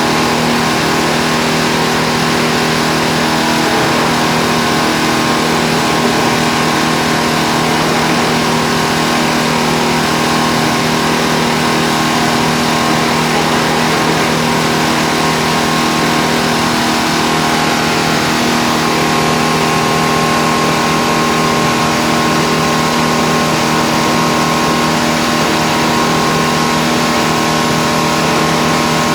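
Mini jaw stone crusher running steadily, its drive engine giving an even hum over a continuous mechanical noise, with no let-up or change.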